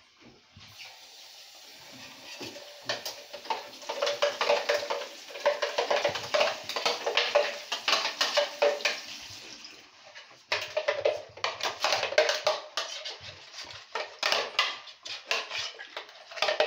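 Rapid clinking and clattering of kitchen dishes and utensils, in two long spells with a short break about halfway through.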